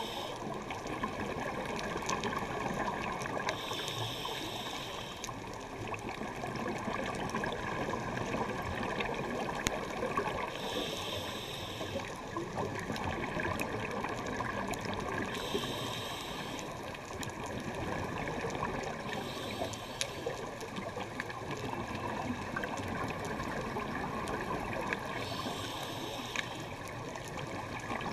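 Underwater noise from a GoPro in its housing on a scuba dive: a steady watery rush, with a short hiss every four to six seconds from the filming diver's regulator breaths and scattered faint clicks.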